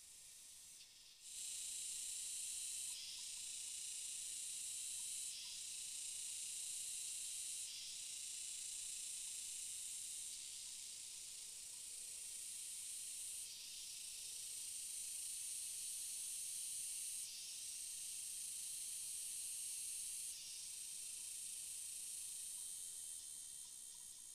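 Steady high-pitched insect buzzing that shifts a little in level every few seconds; it starts suddenly about a second in and cuts off near the end.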